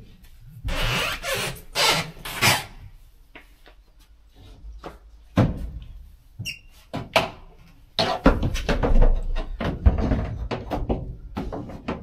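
A large plywood lining panel being handled and fitted against the bare sheet-metal wall of an empty van's cargo bay. Rustling and shuffling come first, then one short squeak, then a run of knocks and bumps as the panel is pressed into place against the wall.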